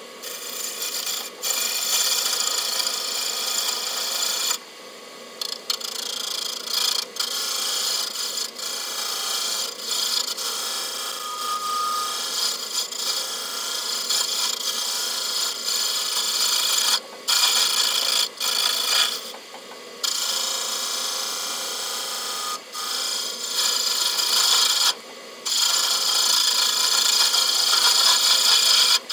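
Lathe turning the inlet face of an aluminium Holset H1C turbo compressor housing: the carbide tool cutting metal with a steady, high scraping hiss. The cut drops out briefly several times.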